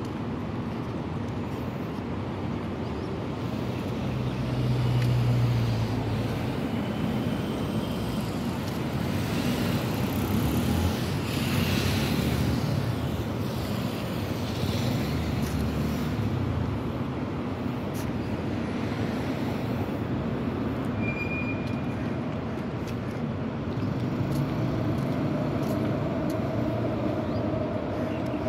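Steady road traffic noise of a city street, with cars passing. A louder low hum swells about four to six seconds in, like a vehicle going by.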